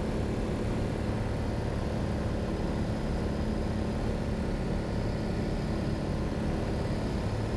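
Cessna 182's single piston engine and propeller droning steadily, heard inside the cabin.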